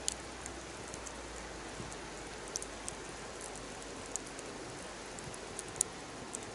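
Wood fire burning with a steady hiss and scattered sharp crackles and pops at irregular moments, the loudest pop near the end.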